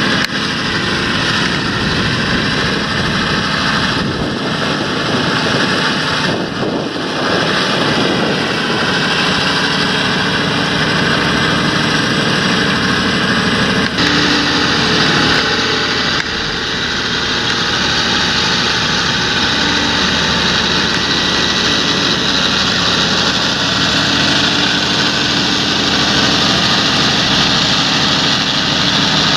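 Large John Deere tractor's diesel engine running steadily while working a field.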